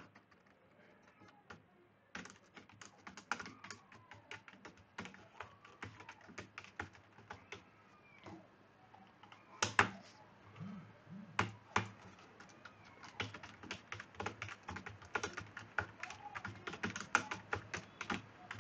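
Typing on a computer keyboard: an uneven run of keystrokes, with a few louder key strikes about ten seconds in, getting faster and denser toward the end.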